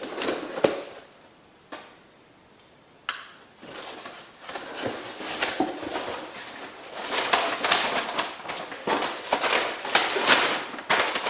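A cardboard shipping box being opened and unpacked by hand. A few knocks and clicks come first, then a short quiet pause. About three seconds in there is a sudden sharp sound, followed by busy rustling and crinkling of the packaging.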